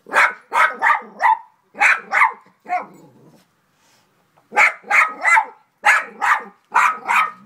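Dog barking, about seven sharp barks in quick succession, a pause of over a second, then another run of about seven.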